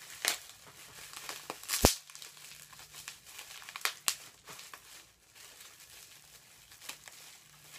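Packaging crinkling as it is handled and searched for an opening, with a handful of sharp crackles, the loudest about two seconds in.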